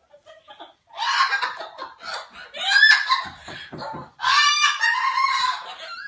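Cockatoo giving three loud, harsh squawks: one about a second in, one near three seconds, and a longer one starting about four seconds in.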